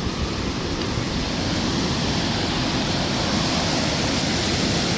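Ocean surf: a steady rush of breaking and washing waves.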